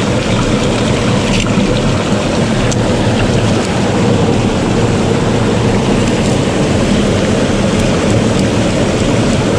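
Loud, steady rush of churning white water close by, with a few faint knocks of a parang blade against the rock.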